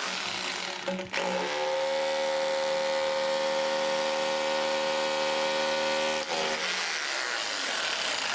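Metabo KHE 2443 SDS hammer drill with an 800 W motor drilling a 6 mm hole for a wall plug. The motor runs lightly at first, comes under load with a louder steady drilling tone about a second in, and falls back off load about six seconds in before stopping.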